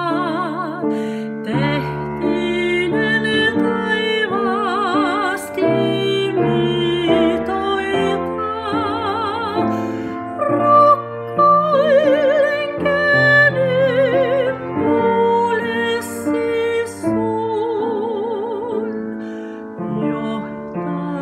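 Woman singing a slow traditional song in an operatic, classically trained voice with wide vibrato, accompanied by piano chords.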